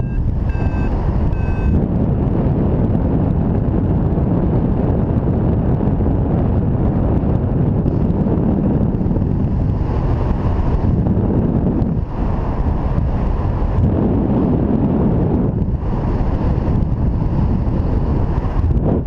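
Wind rushing over the microphone of a paraglider in flight, loud and steady, easing briefly twice in the second half. In the first two seconds a flight variometer beeps three times, signalling rising air.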